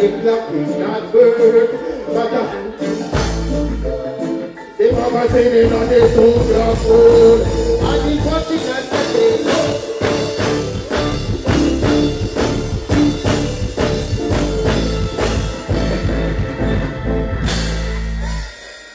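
Live reggae band playing, with a male singer on a microphone over it; the bass line drops out for a moment about four seconds in and comes back fuller, and the music stops shortly before the end.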